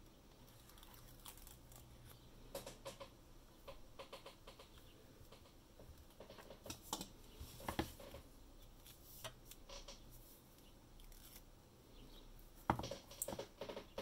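Faint, irregular small clicks and taps with some rustling, coming in scattered clusters, the loudest group near the end: hands handling a tablet and small parts.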